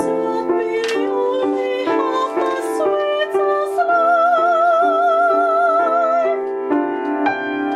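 Piano playing steady block chords while a woman sings over them in a classical, operatic style; about four seconds in she holds one long high note with wide vibrato, then stops, leaving the piano chords alone near the end.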